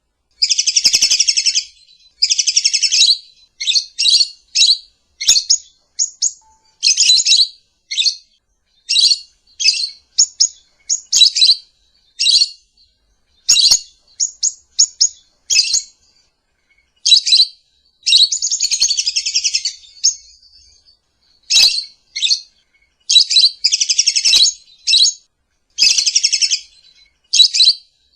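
Lovebird calling: a string of shrill, harsh high chirps, mostly short and a few drawn into chattering runs of about a second, with short silent gaps between them.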